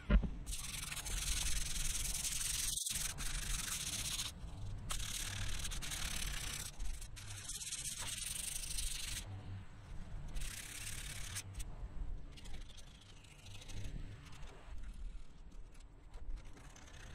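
Sandpaper rubbed by hand over cured body filler on a metal chair base, with a loose sanding disc held flat under the palm. It goes in repeated strokes of a second or two each and turns lighter and fainter in the last few seconds.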